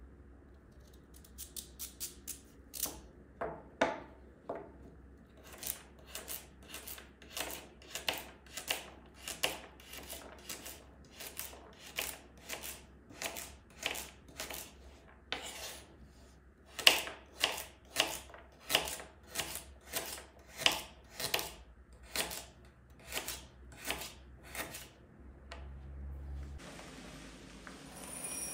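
Kitchen knife slicing a carrot into half-moons on a bamboo cutting board. A few uneven cuts come first, then a steady run of knife strokes at about one and a half a second, which stops a few seconds before the end.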